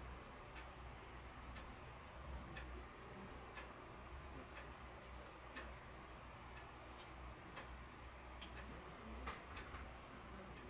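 Faint clock ticking about once a second over a low steady hum, with a few extra light clicks near the end.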